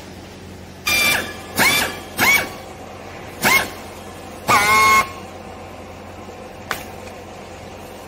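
Green plastic strapping squealing in five short, horn-like squeaks as it is pulled tight around a bale with a hand strapping tool, followed by a single sharp click.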